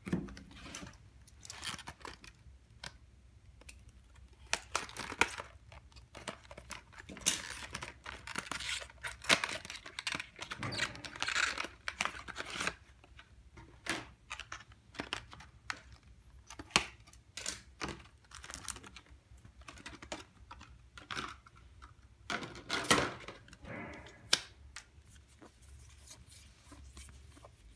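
Trading cards and their plastic wrapping being handled: irregular rustling, crinkling and tearing, with cards clicking against each other. The busiest stretches come a third of the way in and again near the end.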